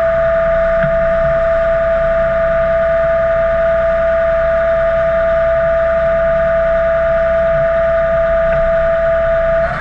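Combine harvester running steadily at working speed: a constant high whine held on one pitch over a low engine rumble.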